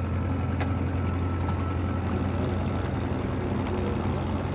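An engine running steadily with a low, even hum. A single short click about half a second in.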